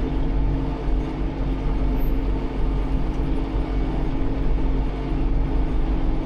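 Tractor engine running steadily, a constant low rumble and drone, heard from inside the tractor's cab.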